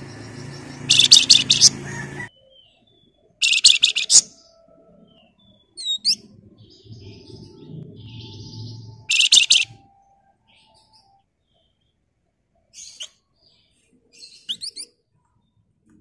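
A caged flamboyan songbird giving short bursts of fast, tight rattling chatter, the loudest three in the first ten seconds and two smaller ones near the end, with a few thin rising whistles between them. A low hum sits underneath during the first two seconds and again around the middle.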